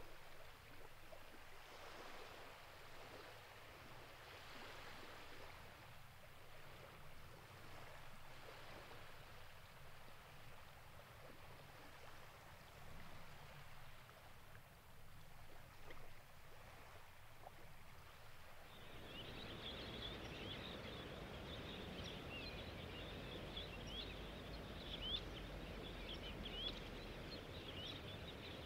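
Faint shore ambience: an even hiss of wind and water. About 19 seconds in, the water sound swells and a flock of small shorebirds starts peeping, with many short high calls overlapping.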